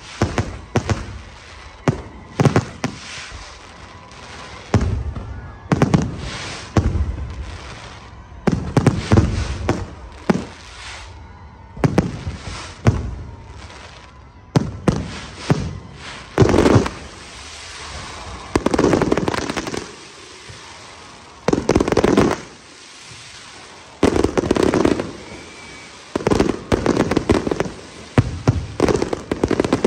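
Fireworks display: aerial shells bursting with many loud bangs at irregular intervals, some ringing on after the blast, and a quick run of bursts near the end.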